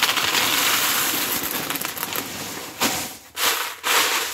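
Expanded clay pellets poured from a plastic bag into a plastic plant pot: a dense, continuous rattle of the pebbles hitting the pot bottom and each other, breaking into a few short rattles near the end as the last pellets go in and are spread.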